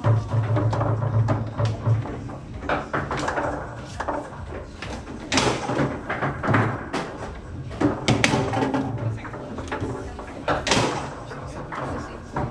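Foosball table in play: irregular sharp knocks and clacks as the ball is struck by the players' figures and hits the table walls, with the rods banging, the loudest hits about five and a half, eight and eleven seconds in. Voices murmur underneath.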